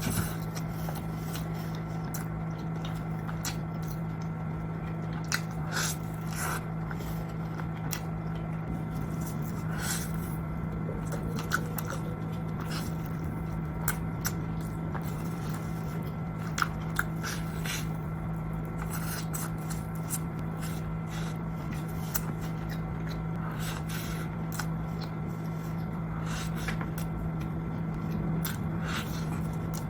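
Close-miked eating: scattered crunchy bites and chewing, over a steady low hum.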